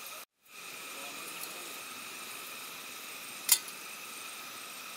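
Steady background hiss with a few thin, steady high tones, broken by a brief dropout just after the start. One sharp click a little after the middle is the loudest sound.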